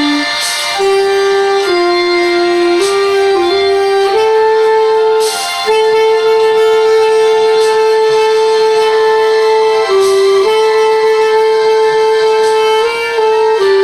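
B-flat clarinet playing a slow melody of held notes, one sustained for about four seconds midway before the line steps down and back up.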